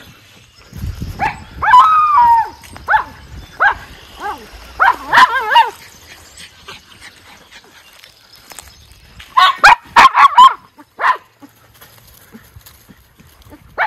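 Miniature schnauzers barking in short, sharp calls. There are a few scattered barks in the first half, then a quick flurry of several barks about two-thirds of the way through.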